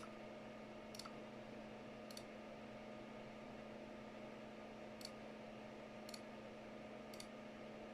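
Six faint single clicks of a computer mouse, spaced about a second apart with a gap in the middle, as lighting effects are selected one by one in keyboard software. A faint steady hum lies beneath.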